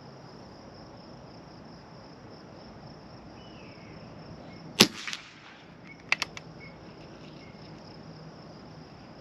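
A BSA Gold Star SE .177 PCP air rifle fires once, a single sharp crack about five seconds in, followed about a second later by two or three quick clicks. Crickets chirp steadily all through.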